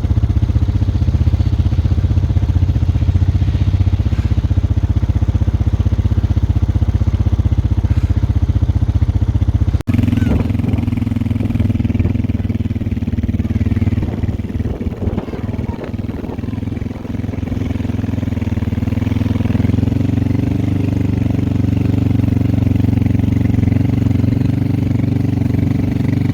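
A vehicle engine running steadily. It cuts off abruptly about ten seconds in and is replaced by a similar steady engine sound with some rattling.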